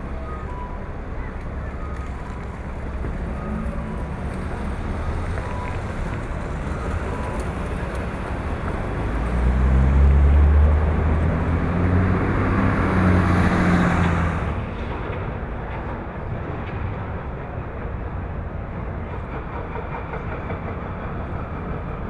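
Steady city vehicle rumble. A louder vehicle passes, swelling from about nine seconds in and peaking near ten. About two-thirds of the way in the sound changes abruptly to a duller, steady rumble.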